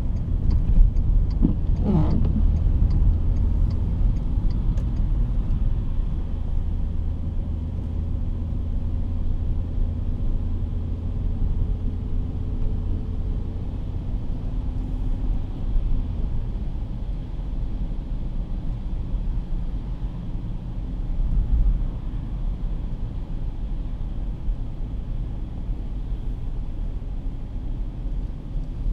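Steady low rumble of a car's engine and tyres on a wet road, heard from inside the cabin. A light, regular ticking runs through the first few seconds.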